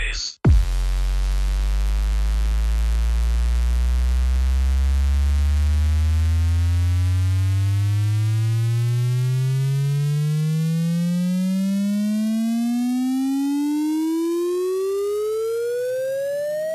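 Electronic bass music: a single synthesizer bass tone, rich in overtones, starts very low after a brief cut about half a second in and glides steadily upward in pitch, rising faster toward the end.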